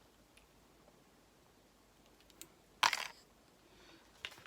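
Near silence broken by one short burst of handling noise about three seconds in, with a faint tick just before it.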